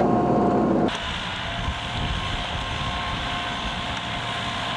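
Iseki TLE3410 compact tractor's diesel engine running steadily under load, driving a PTO rotovator through soil at a slow crawl, with a steady whine over the engine. The sound changes abruptly about a second in, thinner in the bass and hissier on top.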